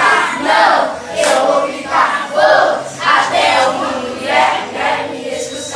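A group of voices singing together in short, loud phrases, about two a second.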